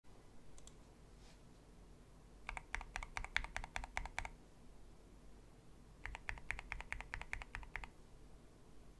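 Typing on a mechanical keyboard with plastic keycaps: two quick runs of keystrokes, the first about two and a half seconds in and the second about six seconds in, each lasting about two seconds, with a pause between them.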